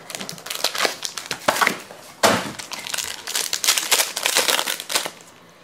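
Foil wrapper of a trading card pack crinkling and tearing as it is pulled from its box and ripped open by hand. It gets louder about two seconds in and stops near the end.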